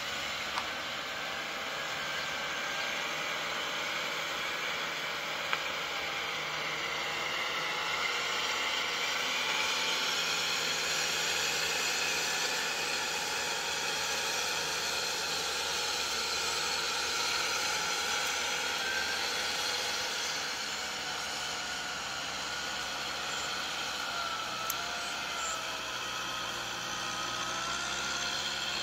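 Kubota M6040SU tractor's diesel engine running steadily under load while it drives a rotary tiller through wet paddy mud.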